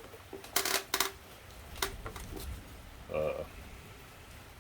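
A few sharp metallic clicks and clinks, the loudest cluster about half a second in and more near one and two seconds, as of hand tools being handled on the bike. A short hum from a man's voice comes about three seconds in.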